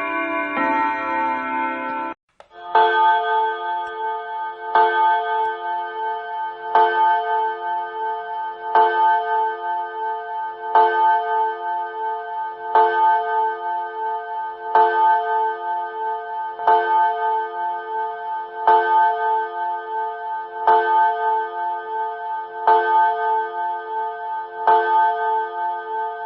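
A chiming clock finishes a short chime tune, then strikes the hour twelve times, one ringing stroke about every two seconds, marking twelve o'clock. Its ticking carries on underneath.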